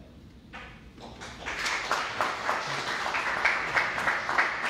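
A small audience applauding: clapping starts about a second in and builds to steady applause.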